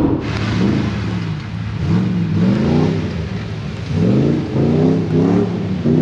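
An engine revved in a string of quick throttle blips, its pitch rising and falling again and again.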